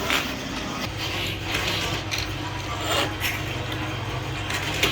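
Factory machinery running with a steady low hum, with irregular sharp clicks and knocks over it, about half a dozen in a few seconds.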